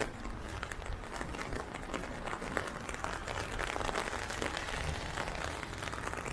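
Steady rain pattering on an umbrella held overhead, a dense spatter of drops.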